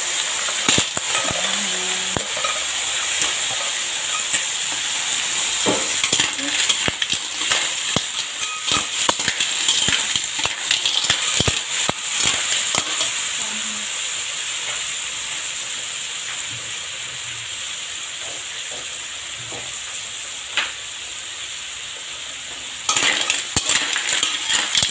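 Clams in their shells sizzling in a hot wok while a metal spatula stirs and tosses them: a steady sizzle under repeated clattering of shells and scraping of metal on the pan. The stirring eases off in the middle and turns to louder clattering again near the end.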